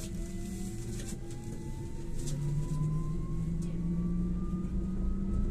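LAZ E301D1 trolleybus accelerating, its electric traction drive giving a thin whine that rises steadily in pitch over a steady hum and low running rumble.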